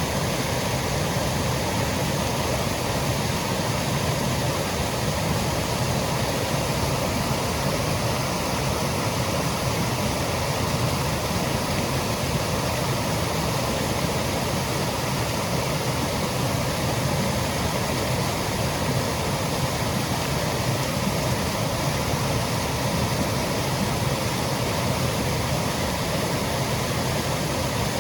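Small woodland waterfall, water cascading with a steady, unbroken rush that does not change in level.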